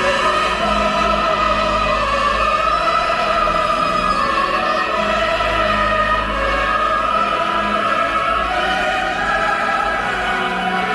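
Choral and orchestral music with long, slowly shifting held voices.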